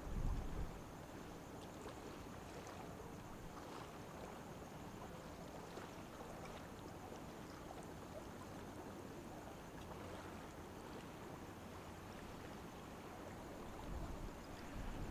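Faint, steady wash of noise from the Spectrum of the Seas cruise ship under way and the water around it. Brief low wind buffets hit the microphone at the start and again near the end.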